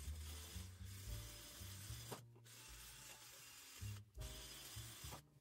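Abrasive rubbing or rasping, with a steady hiss, over background music with a low, shifting bass line. Both drop out briefly twice, about two and four seconds in.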